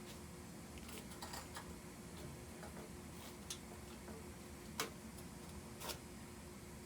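Hand tools and engine-mount hardware being handled: a few light, irregular clicks and taps, the sharpest about two thirds of the way in, over a faint steady hum.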